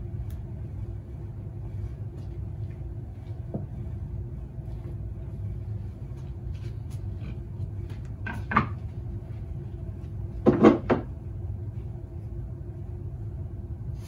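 Cut wooden blanks knocking against each other as they are handled and set down on a stack: a faint knock early, a pair of sharp knocks past the middle, then a louder quick cluster of knocks, all over a steady low hum.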